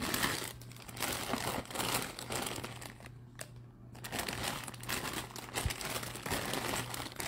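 A clear plastic bag around a jersey crinkling as it is handled and turned over: irregular rustling, with a couple of short pauses about three seconds in.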